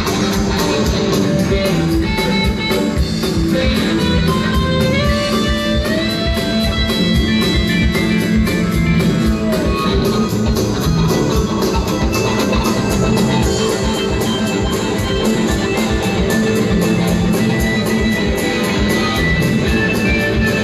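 Rock band playing live: guitar over a steady drum beat, with a long held lead note that slides upward about five seconds in.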